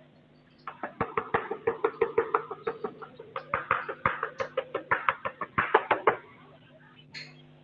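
Chalk knocking against a blackboard while writing: a quick run of sharp taps, about five a second, lasting some five seconds, then one more tap near the end.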